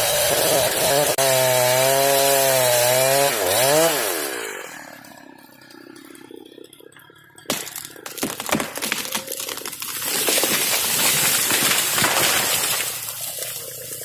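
Chainsaw running at full throttle in a cut, its pitch wavering, then winding down as the throttle is released about four seconds in. About halfway through comes a sharp crack, then several seconds of cracking, crashing and breaking branches as a heavily leaning fir tree falls.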